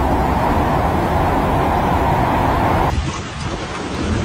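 Steady rushing noise of heavy rain and wind. About three seconds in it cuts to a quieter street recording of rain with cars driving along the wet road.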